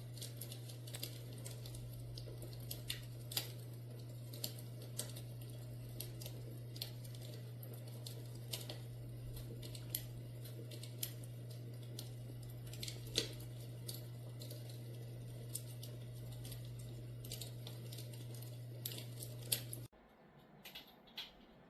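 Fireplace crackler sound box playing its fire-crackling sound: sparse, irregular pops and snaps over a steady low hum, all stopping abruptly about 20 seconds in.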